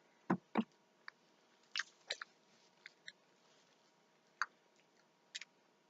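A person chewing a mouthful of sugar-topped dessert biscuit: a scattered run of short, quiet mouth clicks and smacks.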